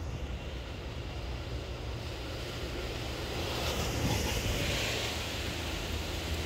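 Steady outdoor background noise: a constant low rumble with a hiss over it that swells about halfway through.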